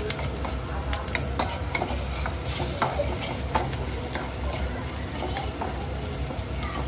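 Noodles stir-frying in a hot pan, sizzling, with a spatula scraping and tapping against the pan at irregular intervals.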